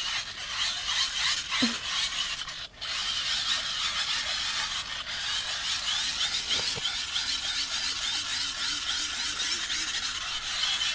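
Hand-cranked dynamo torch being wound: a fast, whirring, scraping rattle of its gears in quick repeated strokes, with a brief pause about two and a half seconds in.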